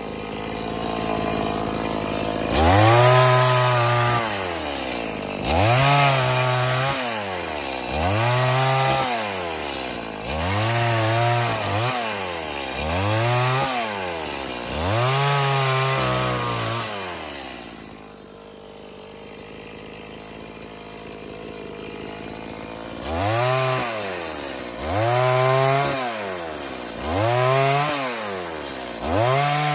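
STIHL MS 180 two-stroke chainsaw cutting thin logs into firewood rounds, revving up for each cut and dropping back to idle between them. Six cuts come in quick succession, about one every two to three seconds, then it idles for about five seconds before four more cuts.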